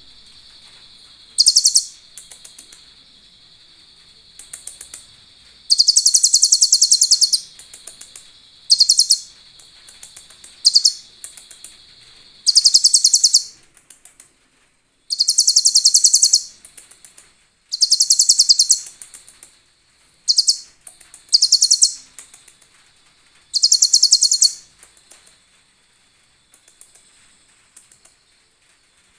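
Kolibri ninja sunbird (konin) singing a very high, rapid trilling song in about a dozen bursts of half a second to two seconds, with short gaps between them; a song with cililin-like phrases worked in. A steady thin high whine runs behind most of it.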